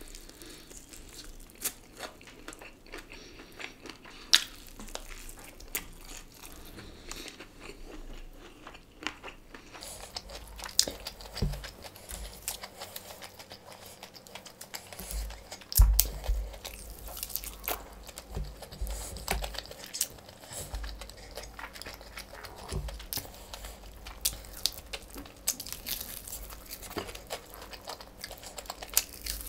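Close-up eating sounds of crispy fried chicken: crunching bites into the coating, wet chewing and the meat being torn apart by hand, as a run of small crackles and clicks. A loud low thump comes about halfway through.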